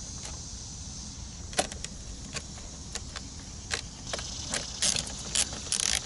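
Scattered clicks and taps as a plastic fuse-box cover is handled and fitted into place. Near the end, runs of rapid ratchet clicking as its screws are tightened with a ratchet and 8 mm socket.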